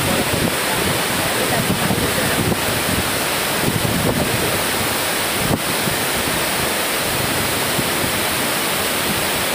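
Water pouring over a river weir's spillway and flowing across its crest: a loud, steady rushing.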